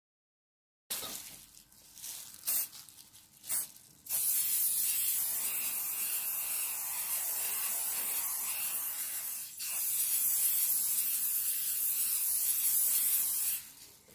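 Aerosol hairspray spraying in one long steady hiss onto a glass 3D-printer bed, with one brief break partway through, laying down a thin adhesion layer for printing. A few soft knocks and handling noises come before the spraying starts.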